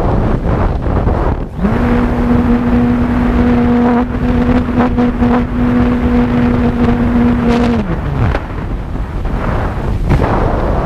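Strong wind buffeting the microphone during a flight. Over it, a steady hum rises in pitch about a second and a half in, holds, then falls away and stops around eight seconds in.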